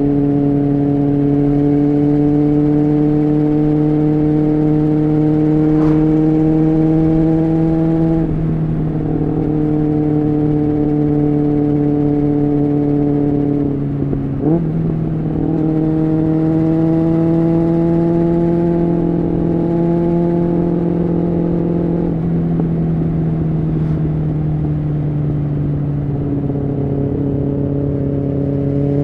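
Honda CBR600F3's inline-four engine under way, its pitch slowly climbing, with brief drops about 8, 14 and 22 seconds in as gears are changed.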